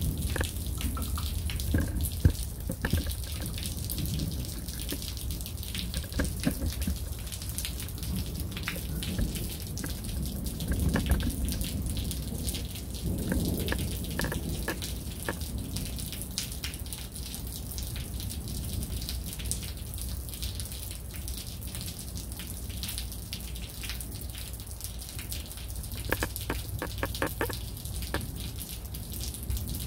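Rain falling in a summer storm: a steady hiss of rainfall with many irregular drops and drips tapping on nearby surfaces.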